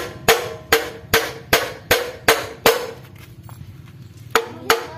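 Big hammer striking steel at the front of a car engine being torn down: a fast run of sharp, ringing blows, about two and a half a second, then a pause of about a second and a half before two more.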